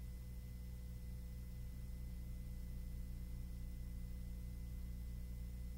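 Faint, steady low drone of the survey aircraft's engine heard inside the cabin, with a thin constant whine over it.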